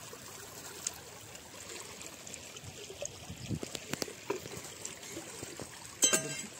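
Seawater flowing steadily along a tidal channel between the rocks, with a few faint clicks and a short, louder ringing sound near the end.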